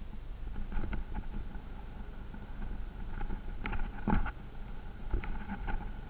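Vehicle driving off-road, heard through a body-mounted action camera: a steady low rumble with wind on the microphone and several short knocks and rattles, the loudest about four seconds in.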